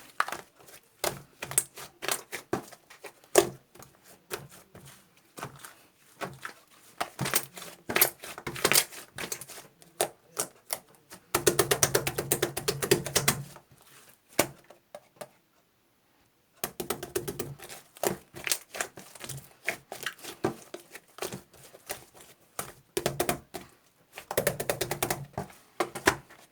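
Bursts of fast key clicks, like typing, with a dense rattling run of clicks around the middle followed by a short silence.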